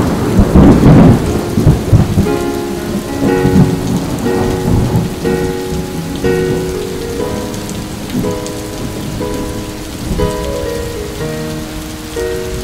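Heavy rain falling steadily, with a loud rumble of thunder in the first two seconds and smaller rumbles later. Soft background music of held notes plays throughout.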